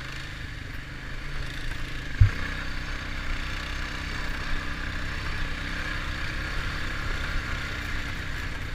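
ATV engine running steadily while riding, a low rumble, with one sharp thump about two seconds in.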